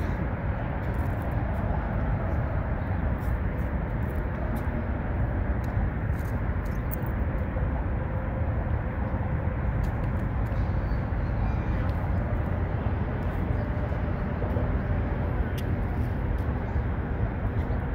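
Steady low rumble of road traffic, even and unbroken throughout.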